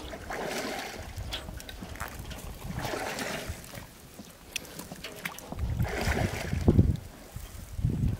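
Shallow water and mud sloshing and splashing with small clicks, while wind buffets the microphone in low rumbles.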